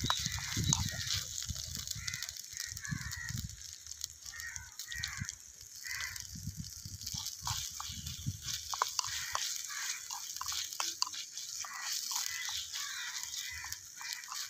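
Small metal spoon stirring and scraping in a miniature clay cooking pot, in light clicks, with wind gusting on the microphone and animals, fowl-like, calling repeatedly in the background.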